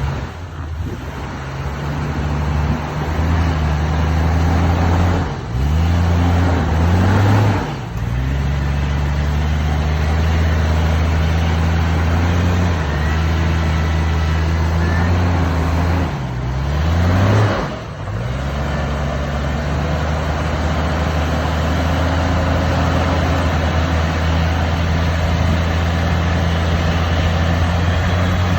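Off-road vehicle's engine running steadily under load while crawling through an obstacle, revving up and falling back twice.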